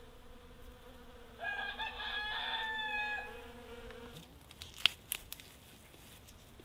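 A rooster crows once, a call of about two seconds that drops in pitch at its end, over the faint steady buzz of a honeybee. Near the end come a few sharp clicks, one of them the loudest sound of all.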